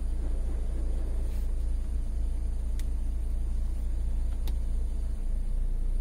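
Hyundai i20 petrol engine idling steadily, heard from inside the cabin along with the heater's air blowing through the dashboard vents. It is a low, even rumble with a faint steady hum.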